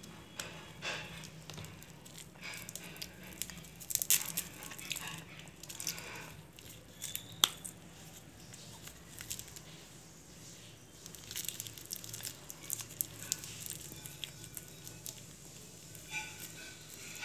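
Handling noise from a small plastic doll and its fabric clothes: scattered soft rustles and light clicks, the sharpest click about seven seconds in.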